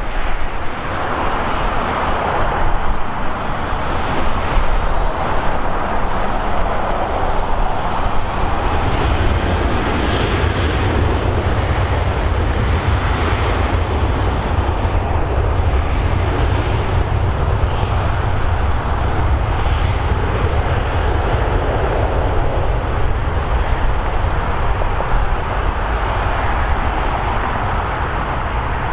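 Jet airliner engine noise, a loud steady rumble and rush.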